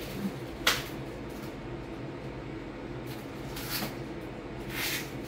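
Kitchen work noises over a steady appliance hum: one sharp clack about a second in, then two short hisses near the end.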